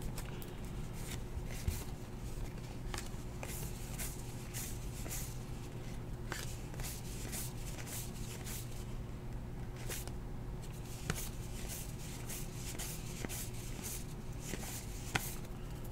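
2018 Heritage baseball trading cards being handled and sorted by hand: soft, irregular flicks and rustles of card stock, over a steady low hum.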